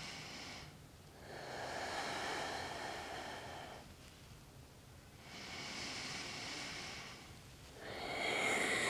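Slow, deep breaths in and out through the nose, each lasting a couple of seconds with short pauses between. This is a woman breathing steadily while holding a reverse plank yoga pose.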